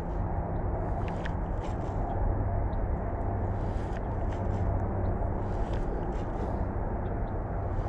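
Steady low outdoor rumble with a few faint, scattered clicks.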